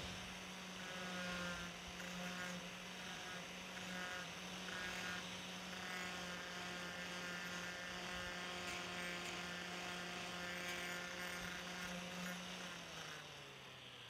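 Angle grinder with an abrasive disc grinding rust off a steel knife blade: a steady motor whine with a pulsing scrape as the disc works the metal. Near the end the grinder lifts off and the motor winds down in pitch.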